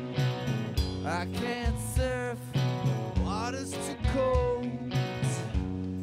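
Alternative rock band playing live: electric guitars, bass and a drum kit keeping a steady beat, with a male voice singing over them from about a second in.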